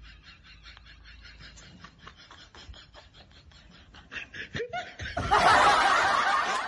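Laughter: quiet, rapid snickering for the first few seconds, then a loud burst of laughter about five seconds in.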